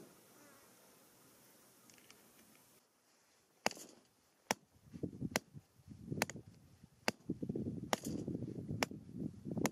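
Hammer tapping the top of a metal grounding rod: about eight sharp strikes at a steady pace, a bit under a second apart, starting about a third of the way in. A rough rushing noise rises underneath the strikes from about halfway.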